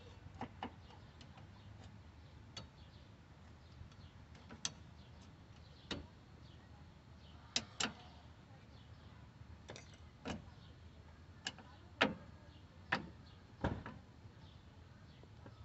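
Irregular clicks and knocks of hand tools and metal parts being handled, about a dozen sharp taps spread over the stretch, the loudest about twelve seconds in.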